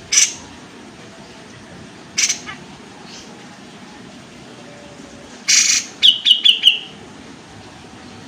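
Kapas tembak calling in sharp, short bursts: three single harsh calls a couple of seconds apart, then a quick run of four ringing notes near the end.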